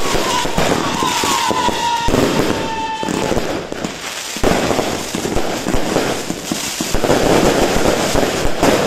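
128-shot firework cake firing in rapid succession: a continuous barrage of launches, bangs and crackling stars. A whistle slides slightly down in pitch over the first three seconds. The barrage eases briefly about four seconds in, then is dense again near the end.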